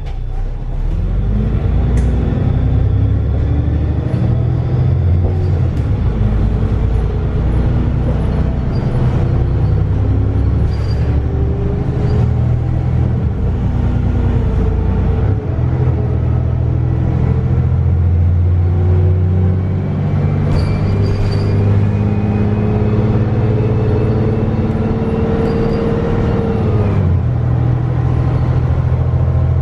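Cummins ISBe 250 diesel and Voith DIWA 854.5 automatic gearbox of a VDL DB300 bus pulling and accelerating, heard from inside the passenger saloon. The engine and gearbox whine climbs in pitch in stages for most of the time, then drops sharply near the end.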